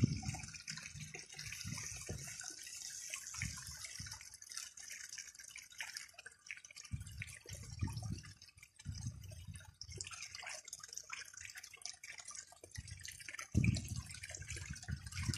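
Water from a river pump pouring steadily through a homemade highbanker sluice box. Occasional low rumbles come and go, strongest near the end.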